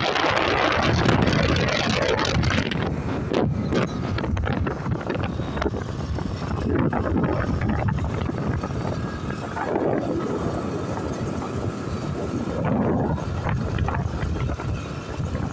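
Wind rushing over the microphone of a moving motorcycle, rising and falling in gusts and strongest in the first couple of seconds, with the bike's engine running underneath.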